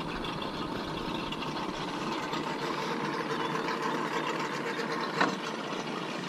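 Engines idling with a steady hum, and one sharp knock about five seconds in.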